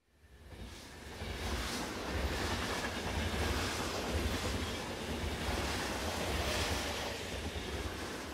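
Electric passenger train running past on its track: a steady low rumble with a rushing noise over it, fading in over the first second or two.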